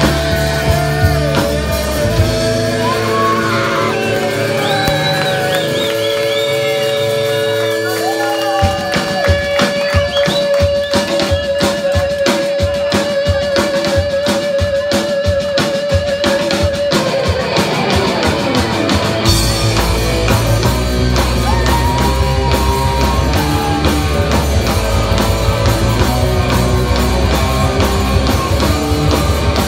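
Live heavy metal band playing loud electric guitars, bass and drums with a singer. The low end drops away early, then the drums come in hard about eight seconds in under a long held, wavering note. The full band with bass comes back in near twenty seconds.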